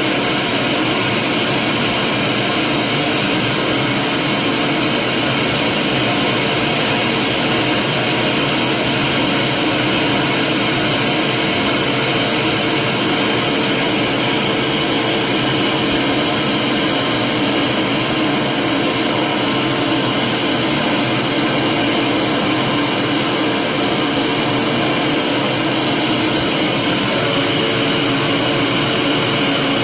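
Vacuum cleaner running steadily, a continuous whooshing motor noise with a fixed whine that never changes in pitch or level.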